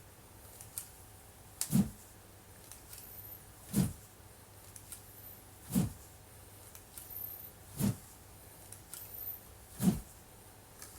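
Wooden sword (bokken) practice swings cutting the air: a short whoosh about every two seconds, five in all, with faint rustling between the swings.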